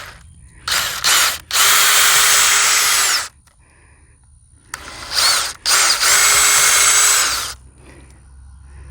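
Power drill boring two pilot holes into a wooden gate for the latch's screws. It makes two steady runs of about two and a half seconds each, and each run starts with a brief quick burst.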